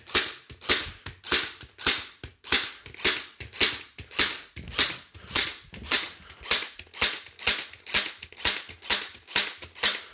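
Ryobi cordless compression-drive staple gun firing staple after staple into a rubber tire tread, a sharp crack about twice a second.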